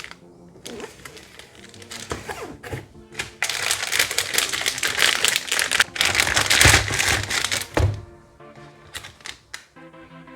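Plastic packaging being handled and crinkled in a dense run of crackles for about four seconds in the middle, as a motherboard is unpacked, over steady background music.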